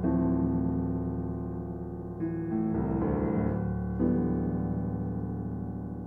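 Background piano music: slow, sustained chords, with a new chord struck every second or two.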